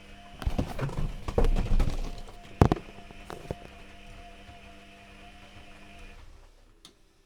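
Privileg Classic 30612 washing machine running with a steady hum. A run of knocks and thuds comes in the first two seconds, then a sharp click, and the hum cuts out about six seconds in.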